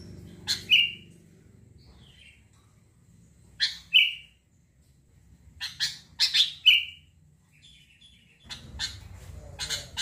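Sooty-headed bulbul calling: four short bursts of sharp chirps, each ending in a clear whistled note, with pauses of a few seconds between them.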